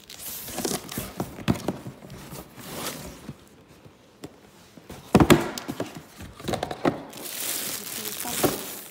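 Rummaging through a cardboard box of packed items: rustling with several knocks and thumps, the loudest about five seconds in, then a plastic bag crinkling near the end as wrapped boots are handled.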